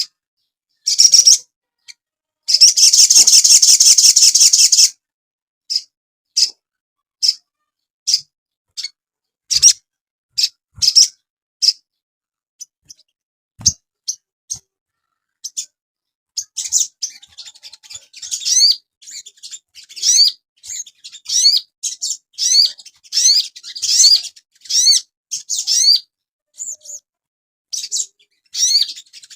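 Sogon songbird singing: a dense chattering trill a few seconds in, then sharp single chirps about a second apart. In the second half these turn into a quick, steady run of short rising whistled notes.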